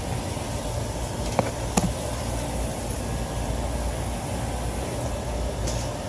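Trane rooftop HVAC unit running, a steady low mechanical hum with the rush of its fans, broken by two short knocks about a second and a half in.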